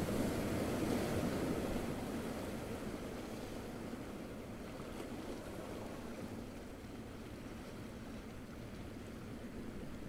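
Small waves washing onto a beach: a hiss of surf, loudest in the first couple of seconds, then easing off, with a slight rise near the end.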